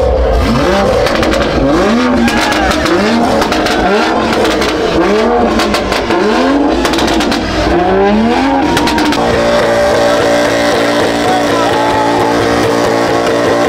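Car engine revved hard over and over, rising and falling about once a second, then held at steady high revs from about nine seconds in.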